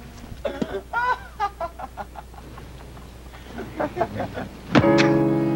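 A man shouting in short, agitated bursts of dialogue. Near the end, a sudden loud chord strikes and holds, slowly fading: a horror-film music sting.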